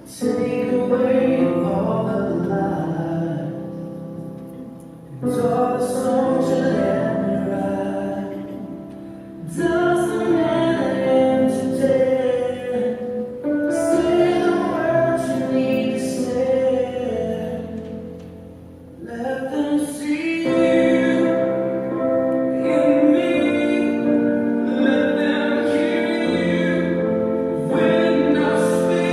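Music with singing: long held vocal notes over accompaniment, in phrases that fade and start again every few seconds.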